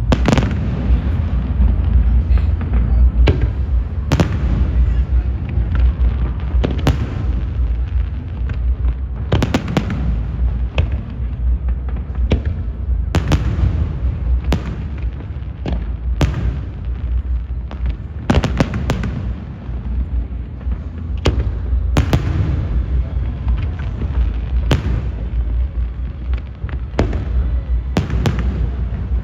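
Aerial fireworks bursting one after another in an irregular volley, sharp bangs every second or two over a constant low rumble of distant booms.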